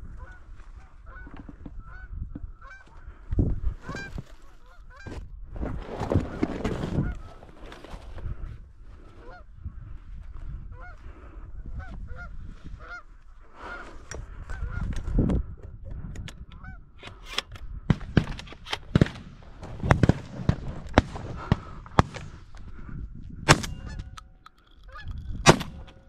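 Geese honking over and over in short calls, with loud low rumbles from wind or handling on the microphone coming and going, and a run of sharp knocks in the second half.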